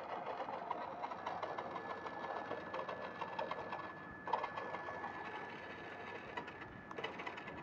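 Toy remote-control car's small electric motor and plastic gearbox whirring as its wheels spin in the air, with a steady high whine from about a second in.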